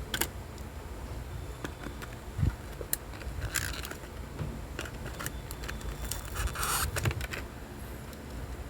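Scattered clicks and a couple of short scraping rustles from handling and opening toy packaging.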